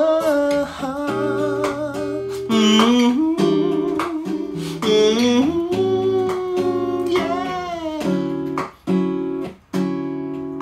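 A song: a voice singing long, sliding notes over acoustic guitar. The music briefly drops out twice near the end.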